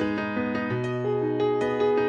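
Background music: soft piano or electric-piano notes played in a gentle, flowing line.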